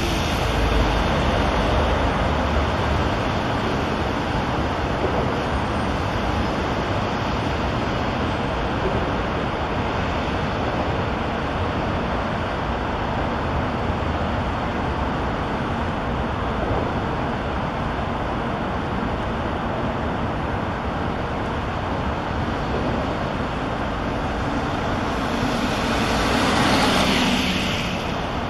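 Steady highway traffic noise, swelling louder as a vehicle passes near the end.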